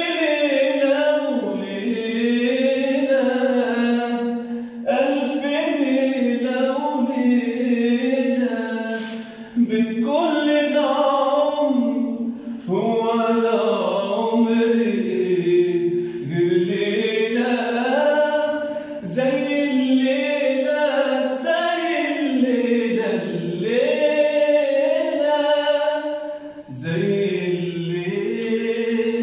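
A man singing unaccompanied, an Arabic song in the old classic style: long, ornamented phrases with held notes that bend up and down, broken by short pauses for breath.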